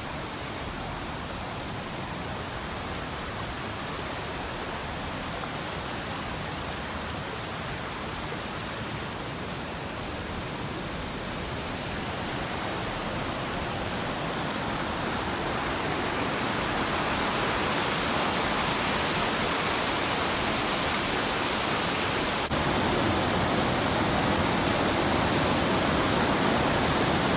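Rushing water of a mountain stream: a steady noise that grows gradually louder, with a sudden step up in level near the end.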